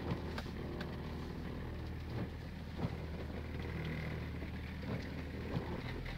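Off-road vehicle's engine running low and steady at crawling speed, heard from inside the cabin, with a few sharp knocks as it goes over rough ground.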